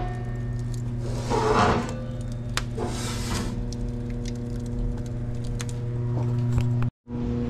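Steady low electrical-mechanical hum, with scattered crackles and soft rushing swells from a wood fire burning in a brick pizza oven.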